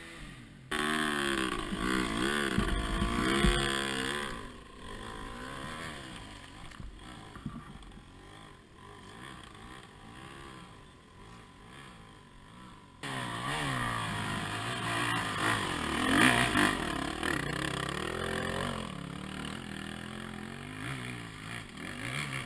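Dirt bike engines revving up and down unevenly. The sound is loudest in the first few seconds, drops lower through the middle, then jumps abruptly louder a little over halfway through with more revving.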